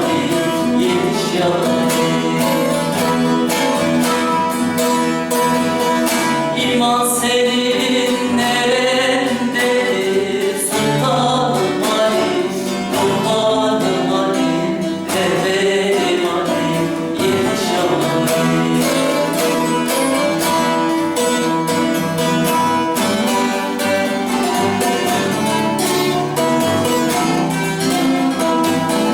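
Bağlama and acoustic guitar playing a Turkish folk song, with singing over the plucked strings in places, notably about a quarter and half of the way through.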